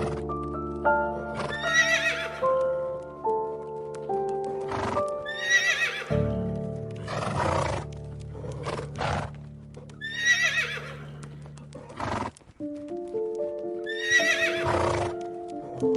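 A horse whinnying four times, each a loud, shaky call, with a few sharp hoof knocks in between, over soft piano music.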